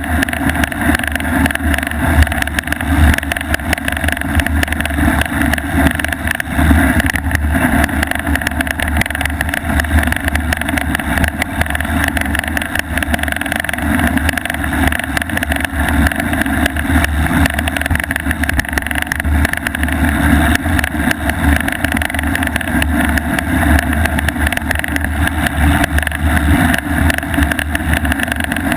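Loud, continuous rattling and rumble from an action camera mounted on a bicycle's front fork, shaken as the knobby front tyre rolls over packed snow. A small loose part inside the camera rattles with every jolt, giving the harsh, unpleasant noise.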